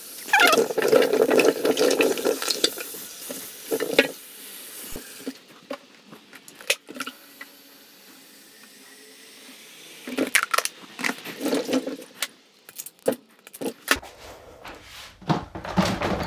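Kitchen tap running and splashing into a stainless steel sink of peeled cassava pieces, stopping suddenly about five seconds in. After that come scattered knocks and clatters of kitchenware being handled at the sink, among them an electric kettle and its lid.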